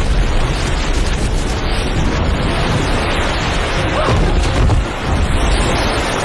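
Film sound effect of a big explosion at sea: a loud blast that goes on as a deep, sustained rumble.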